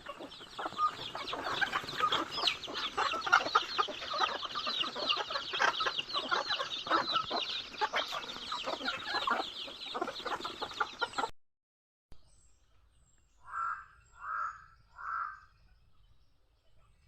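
A flock of chickens clucking busily, many overlapping short calls. About eleven seconds in it cuts off abruptly; a quieter stretch follows with three short calls a little under a second apart.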